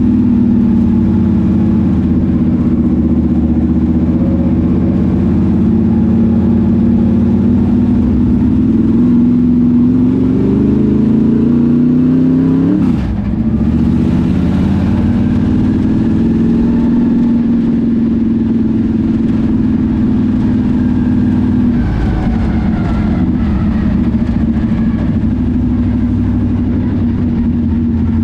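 Dirt late model race car's GM 602 crate small-block V8 running at low speed, heard from inside the cockpit. The engine note climbs for a few seconds to about halfway, drops off suddenly, then settles back to a steady drone, dipping again briefly about three quarters of the way through.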